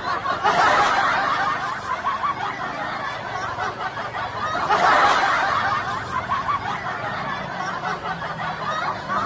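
Several people laughing and snickering together, swelling louder about half a second in and again around five seconds in.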